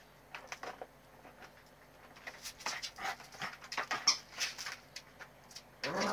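Puppy with a plastic bucket on its head scrabbling and batting at a rubber chicken toy on a hard floor: a quick run of clicks and clattering knocks, then a short pitched cry near the end.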